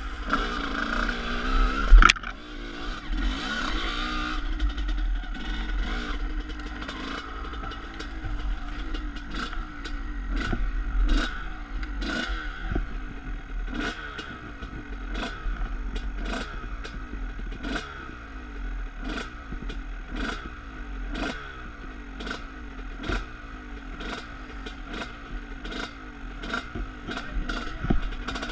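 Enduro dirt bike engine running along a rough trail, with a sharp knock about two seconds in. After a few seconds the bike settles to an uneven idle, broken by sharp ticks every half second or so.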